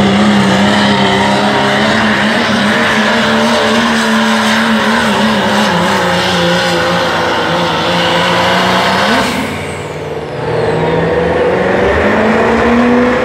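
Diesel pickup truck engine at full throttle pulling a weight sled, a loud steady drone. About nine seconds in the pitch briefly lifts and the engine drops off, then it climbs back up with a rising pitch.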